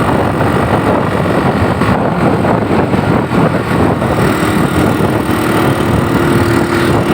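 Loud, steady road noise from vehicles on a busy road, with a faint steady hum coming in about halfway through.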